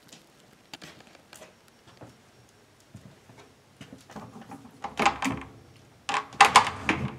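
A door being opened: light clicks of its latch and handle, then louder rustling and knocking bumps about five seconds in and again near the end.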